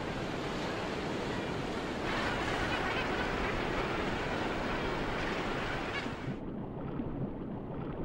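Ocean surf breaking and sea water churning, a steady rushing hiss that grows louder about two seconds in. About six seconds in the hiss suddenly drops away, leaving a duller, muffled rumble.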